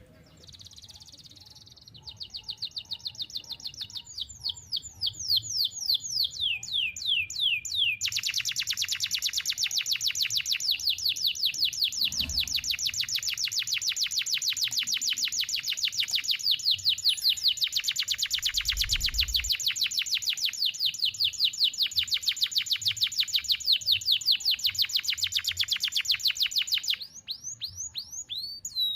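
Domestic canary singing: after a soft start, slower rolled phrases of repeated high notes speed up into one long, very fast trill held without a break for close to twenty seconds, then it stops near the end and a few single notes follow.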